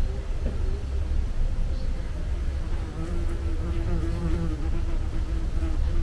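A bee buzzing close by, its hum wavering in pitch and strongest in the second half, over a steady low rumble.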